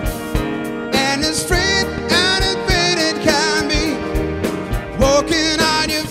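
Male vocalist singing with vibrato over a live big band of piano, electric guitar, bass, drums and saxophones, with a steady drum beat. The voice comes in about a second in and breaks briefly near the end.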